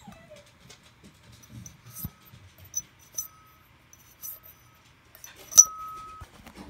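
Compressor wheel of a Forced Performance Blue turbocharger being flicked and spun by hand: a series of light clicks, several followed by a short steady high tone. The loudest click and the longest tone come near the end.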